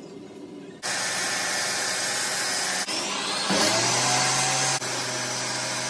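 Table saw running loudly, a motor whine rising quickly about three and a half seconds in and then holding steady, as strips of a glued-up maple and mahogany panel are cut on a crosscut sled.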